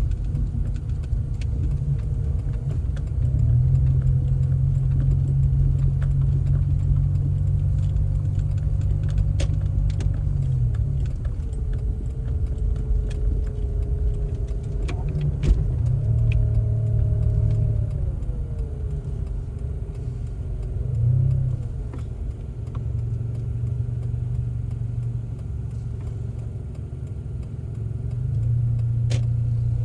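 A car running and moving, with a steady low rumble and an engine note that rises and falls slowly as it goes. A few light clicks and rattles sound here and there.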